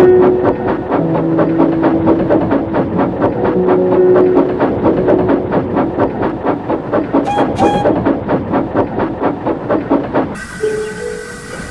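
Steam locomotive working, a fast even beat of exhaust chuffs about five a second over steam hiss, with some held tones. About ten seconds in the chuffing stops abruptly, and a steadier hiss with held tones follows.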